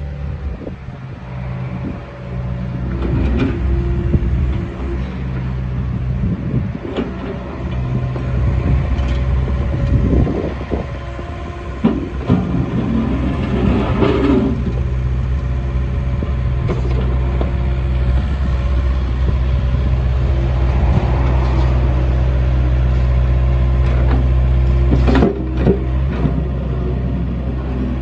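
Hitachi ZX48U-5A mini excavator running, its diesel engine holding a steady note while the hydraulics work the boom and slew the upper structure round. A few knocks and clanks are heard along the way.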